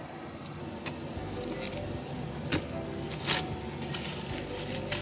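Light handling noises at a kitchen counter: a few sharp clicks and knocks, the loudest a little after halfway, over a faint steady background hum.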